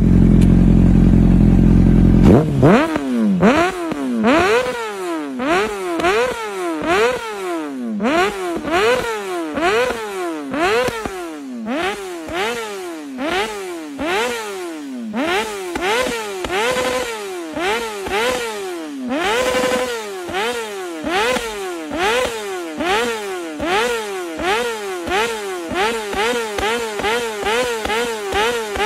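2005 Honda CBR600RR inline-four through a Yoshimura exhaust, very loud. It opens with about two seconds of deep, heavy rumble, then comes a long run of sharp throttle blips, roughly one a second, each rising quickly and dropping back. Pops and crackles sound on the falling revs, and the revs are held briefly twice in the middle.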